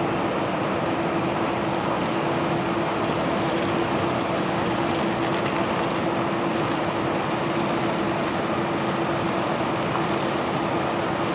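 Barge unloading machinery running steadily: an even mechanical rumble with one constant hum held throughout and no knocks or impacts.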